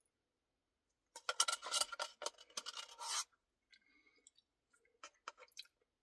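Plastic spoon scraping the inside of a nearly empty paper ice-cream cup: a dense run of scrapes for about two seconds, then a few lighter scrapes and clicks near the end.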